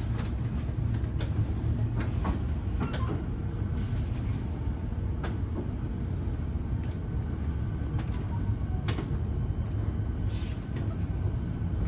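Melbourne Metro electric suburban train running, heard from inside the carriage: a steady low rumble with scattered sharp clicks and rattles.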